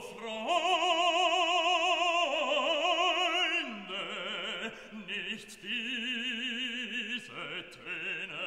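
Background classical music in an operatic style: long held notes with strong vibrato, moving to a new pitch every second or two.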